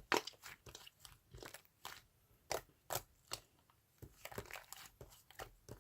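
Slime being squished and poked by hand, giving irregular sticky clicks and small crackling pops, a few a second.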